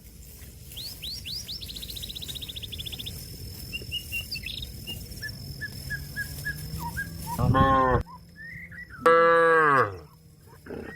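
A cow mooing twice, loudly, in the second half; the first moo cuts off abruptly. Small birds chirp before the moos.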